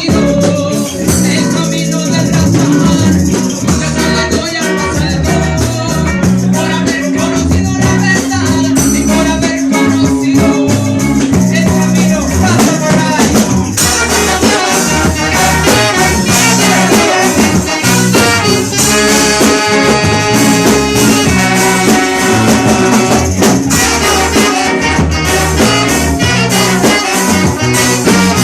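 Loud recorded music with a steady beat, played over a sound system.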